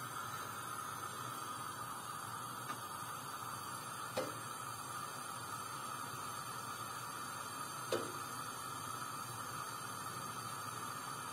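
Faint steady hiss of gas still flowing from the unlit burner of a Weissgauff WCS K2K59 gas stove after its flame has been put out, while the flame-failure gas control has not yet shut the gas off. Two light ticks about four and eight seconds in.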